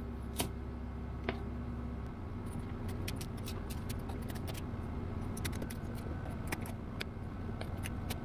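A knife cutting red potatoes on a plastic plate: a string of sharp clicks and taps as the blade goes through and strikes the plate, over a steady machine hum.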